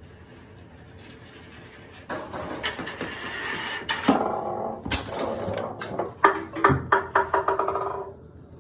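Golf balls rolling down the ramps of a homemade Rube Goldberg machine: a rolling rumble with a string of sharp knocks and clatters as the balls strike the machine's parts, starting about two seconds in and stopping shortly before the end.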